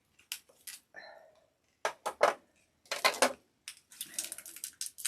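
Plastic packaging of a small Cricut accessory being opened by hand: a string of sharp clicks and snaps, then a steady crinkling rustle from about four seconds in.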